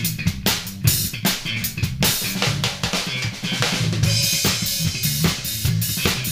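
Drum kit playing a busy funk groove of kick drum, snare and rimshots over electric bass notes, with a cymbal wash about four seconds in.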